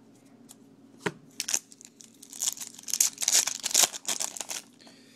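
A foil wrapper of a 2012 Topps Series 1 baseball card pack torn open by hand. A single tap comes about a second in, then about three seconds of loud crackling, crinkling tearing of the foil.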